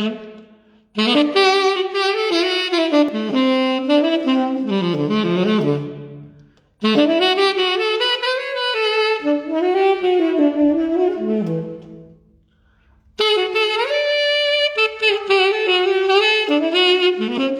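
Solo saxophone playing a jazzy melody in three phrases, with short breaks between them.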